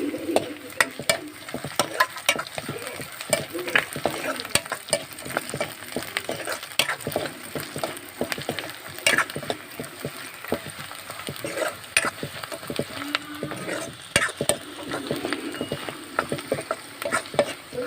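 Chicken frying and sizzling in a pan while it is stirred with a spatula, which knocks and scrapes against the pan in frequent irregular clicks.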